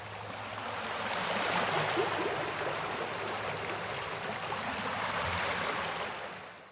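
A steady rushing noise like running water, swelling over the first couple of seconds and fading out near the end, with a faint low hum underneath.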